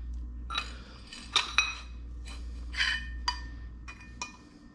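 A handful of light metal clinks, some with a brief ring, as a steel adapter sleeve is slid onto a transmission output shaft and set against a steel holding-fixture bracket. A steady low hum runs underneath.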